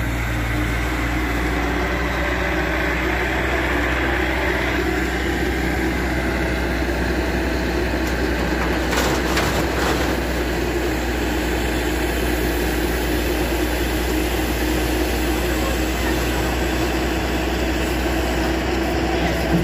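Bobcat skid-steer loader's engine running steadily while it lifts and tips a bucket of mulch into a small trailer, with a brief rush of falling mulch about halfway through.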